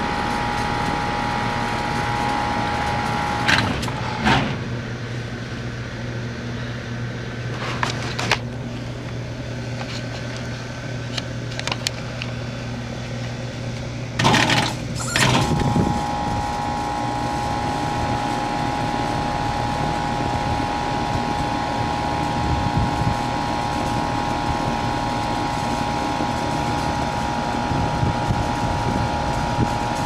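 Old 1994 ICP (Heil) outdoor air-conditioning unit running with a steady hum and a few knocks; about halfway through, after a loud clunk, its compressor comes back on and a steady high tone sets in. The compressor keeps cutting out, and the system is running short of refrigerant charge.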